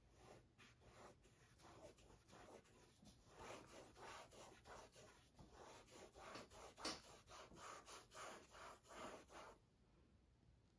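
Paintbrush scrubbing acrylic paint into a textured canvas in quick, faint back-and-forth strokes, about two to three a second, stopping about nine and a half seconds in.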